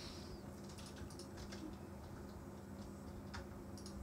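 Faint, irregular clicks of a computer mouse and keyboard over a low steady hum.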